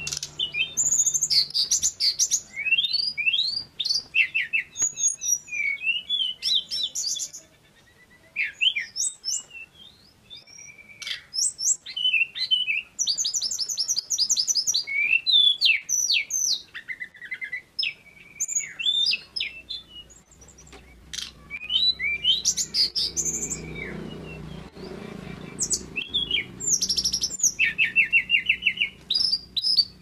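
Male tledekan gunung, a small blue-and-orange flycatcher, singing vigorously. It gives a long, varied run of high whistled notes that slide up and down, broken by fast trills and a few short pauses.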